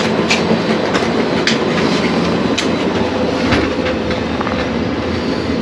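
Interior noise of a passenger train carriage: a steady low hum with a few scattered sharp clicks and knocks, and a steady tone joining about halfway through.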